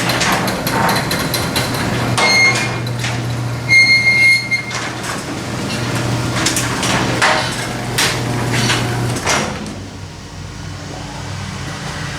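Garage door opener motor running as the door opens, with the door clunking and rattling in its tracks. Two short high beeps come about two and four seconds in. The motor hum stops about nine seconds in, as the door reaches the fully open position.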